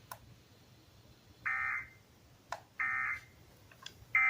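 Three short Emergency Alert System data bursts from a weather radio, the SAME end-of-message tones that close a flash flood warning broadcast, each lasting under half a second with about a second between them. A faint click comes at the start and another between the second and third bursts.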